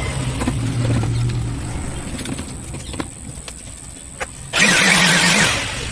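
Electric blower cleaning dust off a CRT TV's circuit board: a motor hum that dies away in the first second or so, a few light clicks, then a short blast of air with the motor whirring near the end.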